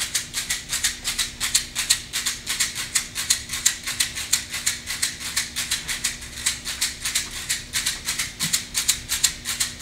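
A hand rattle shaken in a steady, even rhythm, about four to five shakes a second.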